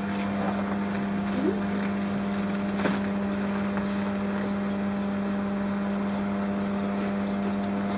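Steady low mechanical hum, even in level, with a few faint clicks. No distinct splash or whoosh stands out when the boiling water is flung into the frozen air.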